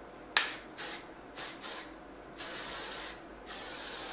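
Aerosol can of Osis Glamination strong-hold shine hairspray being sprayed: a sharp first spurt, three short puffs, then two longer hissing sprays of about a second each.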